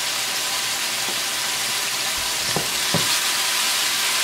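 Chicken breast pieces frying in hot oil in a pan, a steady sizzle as the added liquid cooks off and the meat browns on high heat. Two faint ticks a little past halfway.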